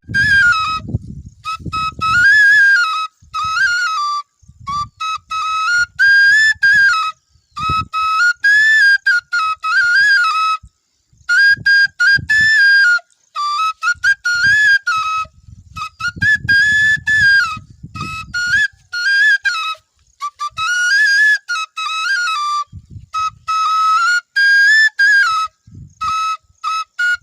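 Bansuri (bamboo flute) playing a high melody in short phrases separated by brief gaps, the notes rising and falling with small slides between them.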